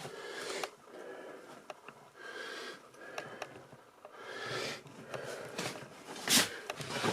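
Close breathing of a person, a slow in-and-out about every two seconds, with scattered small clicks and a sharp knock about six seconds in.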